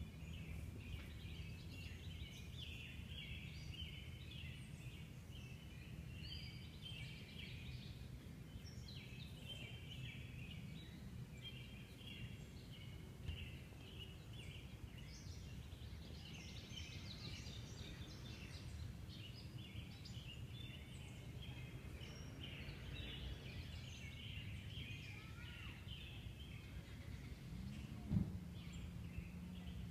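Outdoor ambience: many small birds chirping over a steady low hum, with a single knock near the end.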